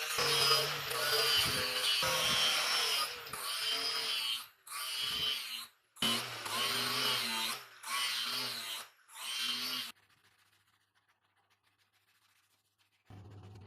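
A small electric power tool running under load in several short, abruptly cut clips, its pitch wavering as it bears on the work; then about three seconds of near silence.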